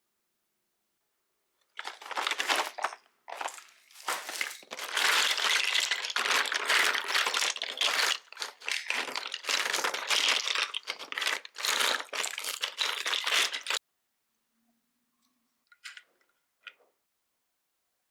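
Crinkling and rustling of something being handled, in dense irregular bursts for about twelve seconds, then two brief faint sounds near the end.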